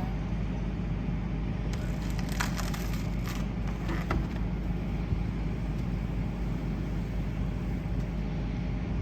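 An engine idling steadily, with a few sharp cracks and snaps of wood splintering about two to four seconds in.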